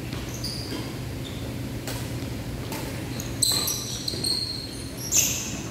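Badminton rally: a few sharp racket hits on the shuttlecock and short, high sneaker squeaks on the court floor, over a steady low hall hum.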